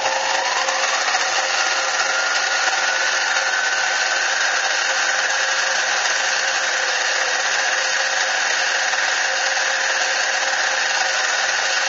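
Modified mini lathe running, its motor whine rising as the spindle comes up to speed over the first couple of seconds, then holding steady; the whine starts to fall right at the end.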